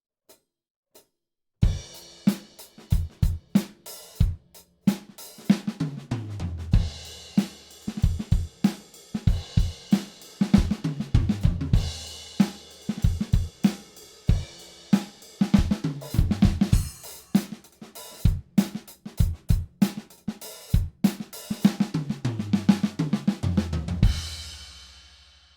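Studio-recorded acoustic drum kit played solo. A couple of faint clicks count in, then kick, snare, hi-hat and cymbals play a groove broken by tom fills that run down from the high toms to the floor tom. It ends on a hit that rings out and fades near the end.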